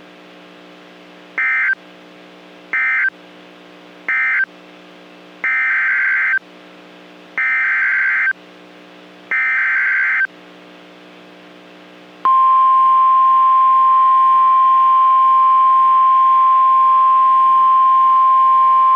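NOAA Weather Radio alert signalling: three short warbling digital data bursts (the SAME end-of-message code), then three longer one-second data bursts (the SAME header announcing a new warning), then, about twelve seconds in, the steady single-pitch 1050 Hz warning alarm tone. The bursts sit over a low steady hum from the radio.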